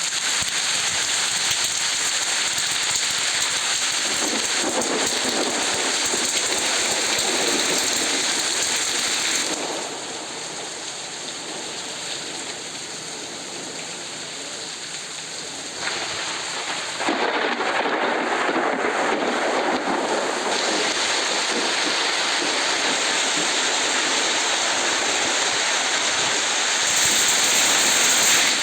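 Recorded rain ambience played from a sleep-sounds app: a steady rushing hiss of rainfall. It switches abruptly between recordings several times, going quieter about a third of the way in and louder again just past the middle.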